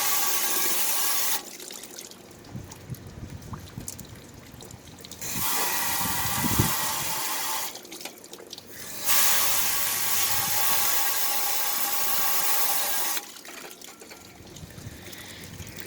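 Garden hose spray nozzle spraying water down inside an air conditioner condenser onto the compressor, in three bursts of a few seconds each, with quieter dripping and trickling between them.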